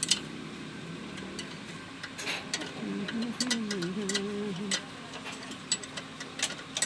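Scattered, irregular sharp clicks and light metallic taps from tools being handled during a wheel bearing job. A muffled voice is heard briefly in the middle.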